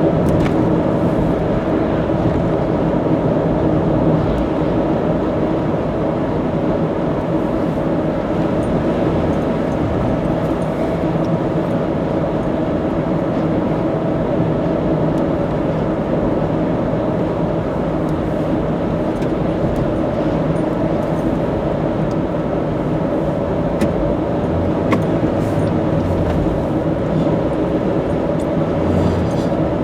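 Car driving at expressway speed: a steady hum of road and engine noise.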